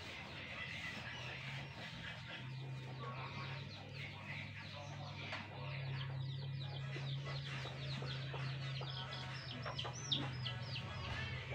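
Chickens clucking, a quick run of short high calls that gets busier in the second half, over a low steady hum.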